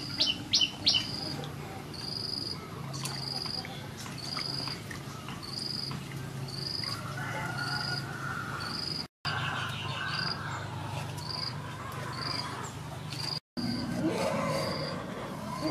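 A small animal's high chirp repeating about once a second at an even pace, with a few sharp clicks in the first second and soft scraping and handling noises in between.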